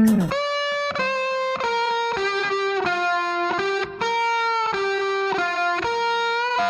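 Background music: a solo electric guitar line with effects, playing a melody of held notes that change about every half second.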